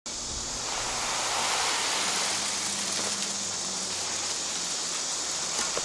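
Steady high-pitched outdoor hiss with a faint low hum beneath it.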